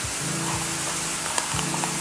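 Background music: held low chords, with a new one starting about a second and a half in and a few light taps, over a steady hiss.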